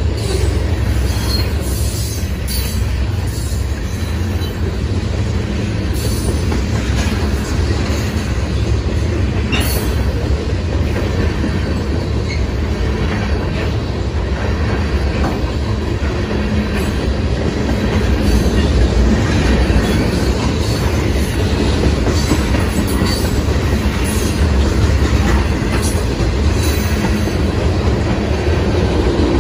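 Freight train of covered hopper cars and tank cars rolling past close by: a steady low rumble of steel wheels on rail, with scattered clicks and knocks.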